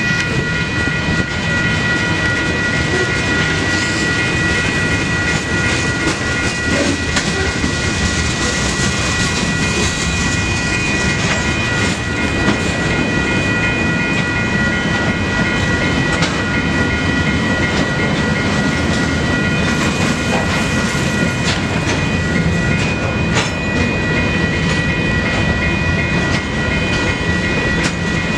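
Freight cars rolling through a railroad grade crossing, their wheels running steadily over the rails, while the crossing's WCH electronic bells ring without pause through the activation.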